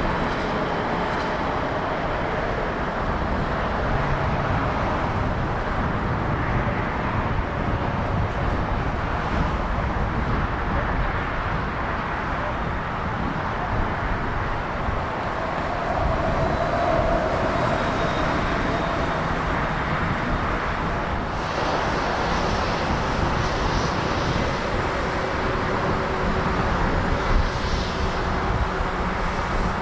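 Airliner jet engines running: a steady, wide noise with faint steady whining tones in it. About two-thirds of the way through, more high hiss comes in.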